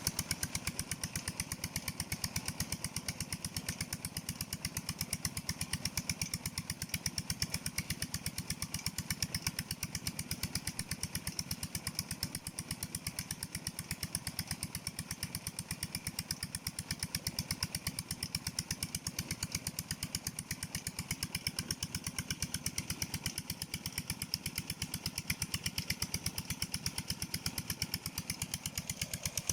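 Engine driving a tubewell pump, running steadily with a fast, even train of exhaust beats that does not change.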